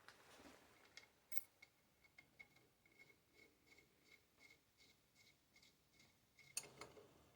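Faint, even metallic ticking, about four ticks a second, each with a short light ring, followed by a louder click near the end.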